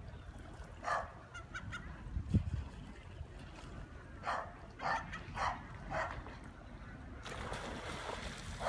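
A dog barking: a couple of short barks early, then a run of four about half a second apart. Near the end comes a rush of noise, with a single low thump earlier on.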